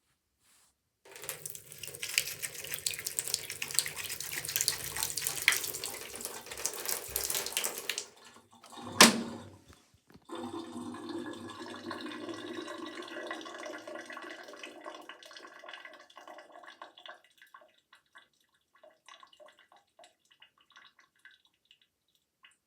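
Running water, splashing steadily for about seven seconds and then stopping, followed by one loud knock about nine seconds in. The water then runs again with a steadier, more ringing sound before fading out into scattered drips.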